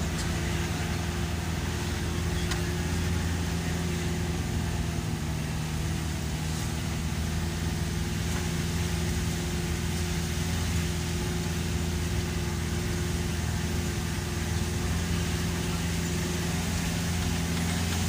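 A vehicle's engine running steadily while driving, heard from inside the cabin: an even, low drone.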